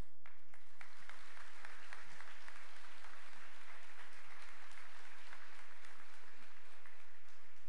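Congregation applauding, many hands clapping together; the clapping swells in the first second and dies away near the end.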